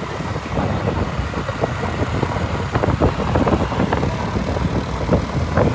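Motor vehicle engine running, with steady road traffic noise.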